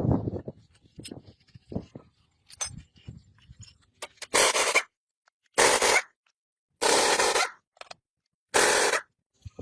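Four strokes of rubbing or scraping against a surface, each about half a second long and roughly a second apart, after a few light knocks.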